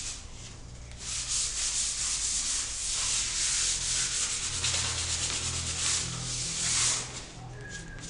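Plastic spatula scraping acrylic wall putty over a tiled wall to smooth out scratch marks. It is a continuous rough scraping for most of the time, easing off near the end.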